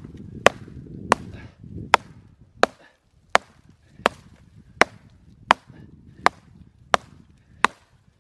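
A small, dull camp hatchet chopping a stick on the ground: about eleven sharp strikes in an even rhythm, a little under one and a half a second. It takes many blows to get through the stick because the blade is not sharp.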